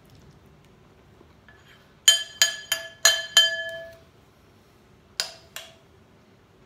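Metal spoon clinking against a ceramic bowl while scooping from its bottom: five quick ringing strikes about two seconds in, the last one ringing on, then two more about five seconds in.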